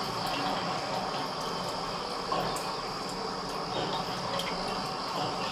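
Steady high-pitched drone of insects over an even outdoor hiss, with a few faint clicks.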